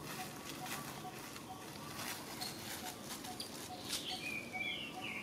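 Macaques scuffling on dry leaf litter: scattered rustles and scuffs as they wrestle. From about four seconds in come a few short, high squeals that fall in pitch, from the baby macaque being pinned.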